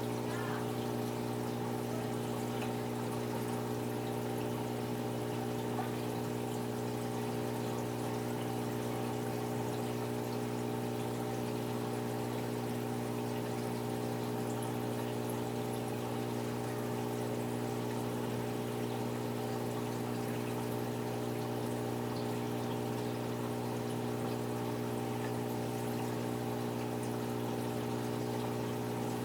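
Aquarium filter running: a steady electric pump hum with water pouring and trickling back into the tank.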